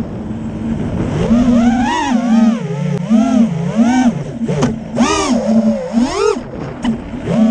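FPV racing quadcopter's brushless motors and propellers whining, the pitch swooping up and down again and again as the throttle is worked through dives and turns.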